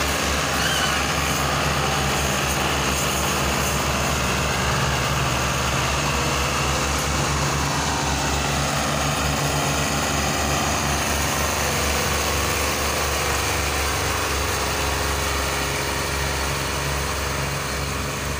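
Diesel farm tractor engine running steadily under heavy load as it hauls a trolley piled with sugarcane out of a soft cane field; a continuous low throb that eases slightly near the end.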